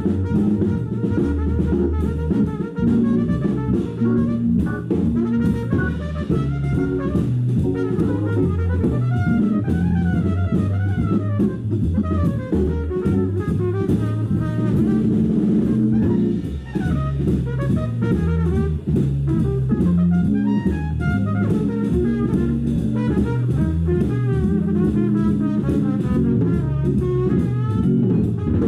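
Live jazz trumpet solo over a drum kit and a bass line. The trumpet plays fast runs of notes that climb and fall, against steady swinging cymbals and drums.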